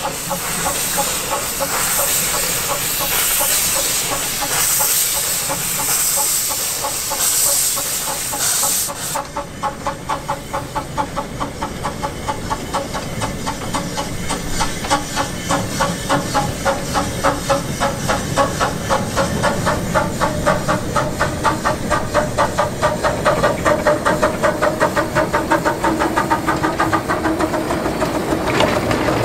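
A 12-inch gauge 0-4-2 tank steam locomotive: a loud steam hiss that cuts off suddenly about nine seconds in, followed by the locomotive's regular exhaust beats, about two or three a second.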